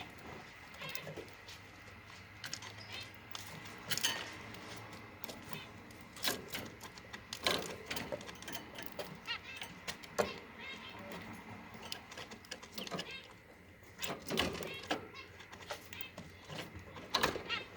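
Red-throated parrot finch husking and eating seeds: irregular sharp clicks and taps of the beak cracking seed hulls and pecking at the dish.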